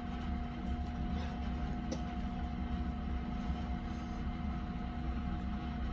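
Steady background hum with two constant tones over a low rumble, and a faint click about two seconds in.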